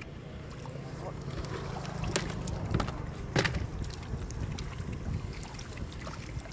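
Water sloshing in a wooden boat's flooded hull as hands sweep through catfish in shallow water, with three sharp splashes near the middle, over a low rumble.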